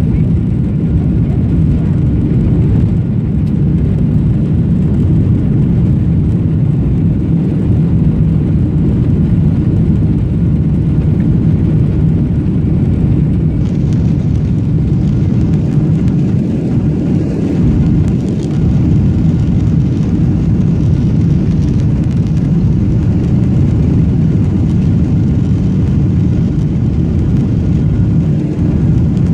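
Steady low rumble of a jet airliner heard from inside the cabin as it rolls along the runway on the ground, engine noise mixed with the rumble of the wheels.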